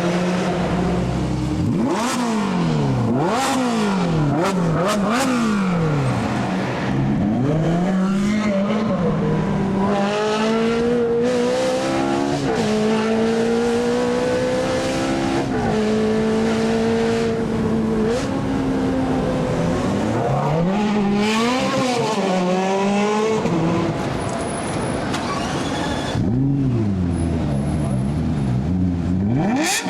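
A supercar's engine being revved hard: several quick blips that rise and fall, then a stretch held at high revs for several seconds, then more sharp revving near the end.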